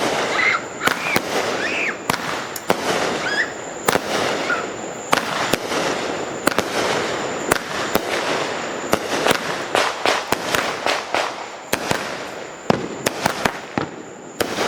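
Consumer fireworks going off: a continuous crackle with many sharp bangs at irregular intervals.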